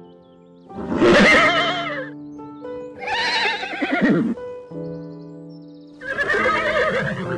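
Three long, quavering animal calls, each about a second and a half long, over steady background music.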